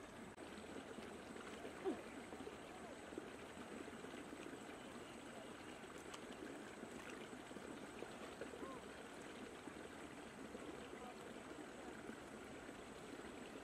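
Shallow stream trickling and babbling over rocks, a steady low-level water sound.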